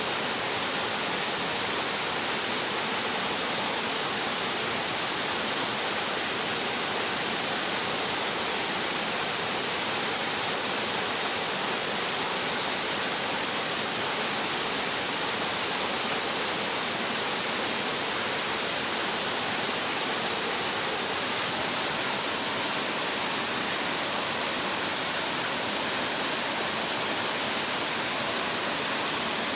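Waterfall: a steady, unbroken rush of falling water, heaviest in the hiss of the upper range.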